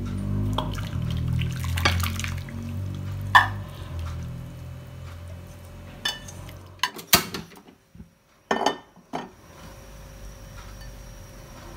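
Clinks and knocks of a metal spoon against a nonstick saucepan, and the pot set down and tipped, as coconut-milk curry is poured out into a serving dish. Background music fades out about halfway through.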